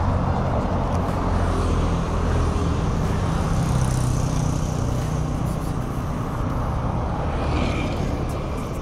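Road traffic: a passing vehicle's engine and tyre noise, loudest a few seconds in and easing off toward the end.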